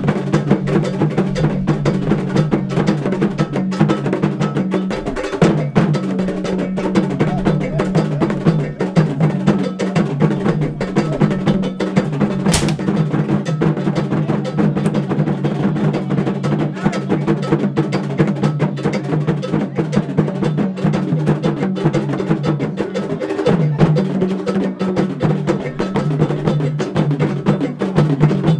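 Percussion music of drums and a struck bell keeping a fast, steady rhythm over a steady low drone, with one sharp crack about halfway through.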